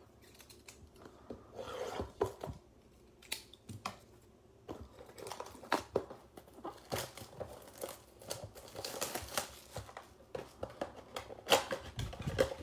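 Plastic shrink-wrap and cardboard of a trading-card blaster box crinkling and tearing as it is unwrapped and opened by hand, in irregular crackles and rustles with one sharper snap near the end.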